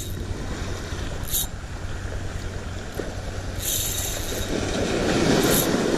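Small waves washing up and over a pebble shore, with wind buffeting the microphone and the surge swelling near the end. A few short hissing bursts break through, about a second and a half in, around four seconds in, and once more near the end.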